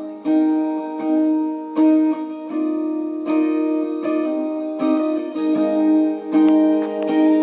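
Acoustic stringed instrument strumming chords in a steady rhythm, a new strum about every three-quarters of a second, as an instrumental intro with no singing.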